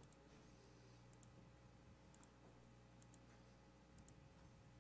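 Near silence with a few faint computer mouse clicks over a steady low hum.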